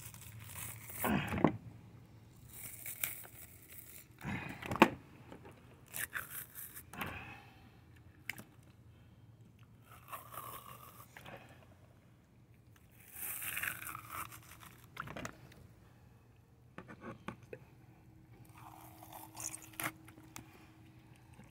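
Skin being pulled off a flathead catfish with pliers: a series of short, irregular tearing and scraping tugs with quiet gaps between them.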